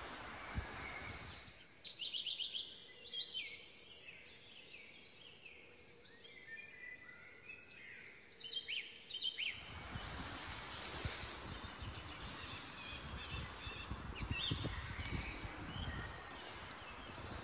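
Small birds singing and chirping in woodland, with many short rising and falling calls. From about two seconds in, the background noise drops away for several seconds and only the bird calls remain. After that, the rustling and scraping of gloved hands working in soil and roots come back under the birdsong.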